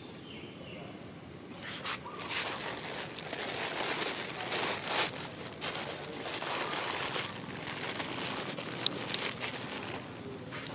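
Irregular crackling and rustling noise with many small sharp clicks, starting about two seconds in and easing off near the end.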